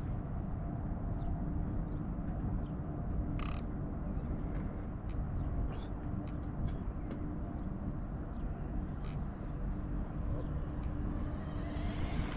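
Low wind rumble on an open runway, with a faint steady hum underneath and a dozen or so short, sharp bird calls scattered through the middle.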